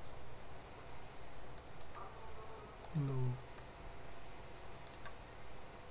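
Quiet computer mouse clicks, a handful of them, some in quick pairs. A short, falling 'hmm' from a person's voice comes about halfway through.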